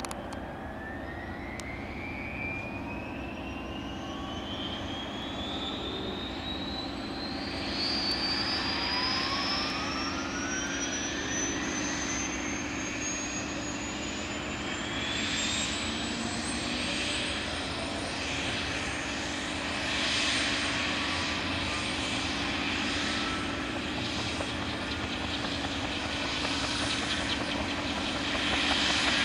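Fuji-Bell 204B-2 helicopter's Lycoming T53 turboshaft engine starting: a high turbine whine rises steadily in pitch over about the first 18 seconds as the engine spools up, then holds steady.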